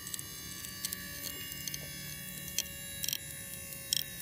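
Pump of a bolt pull-tester running with a steady whine and hum as it loads a wedge bolt in rock. A few faint ticks come through over it.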